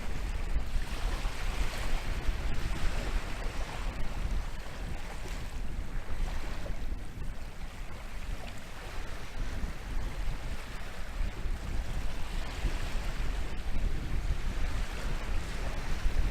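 Atlantic surf breaking and washing on a beach, the hiss of the wash swelling and fading several times, with wind buffeting the microphone as a steady low rumble.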